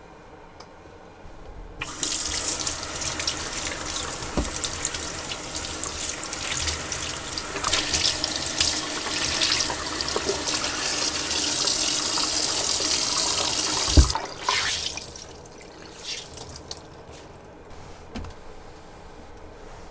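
Kitchen tap turned on about two seconds in, running water into the sink for about twelve seconds, then shut off with a sharp knock. A few light clinks follow.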